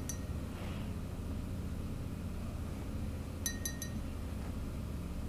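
Steady low room hum, with three quick ringing clinks about three and a half seconds in: a paintbrush tapped against a glass water jar.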